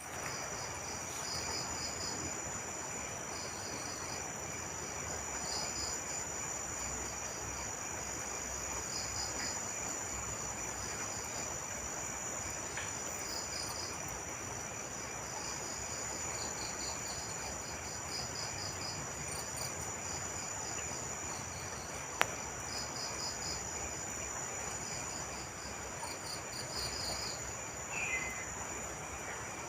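Night insects: crickets chirping in short pulsed groups over a steady high-pitched trill, with a single sharp click about 22 seconds in.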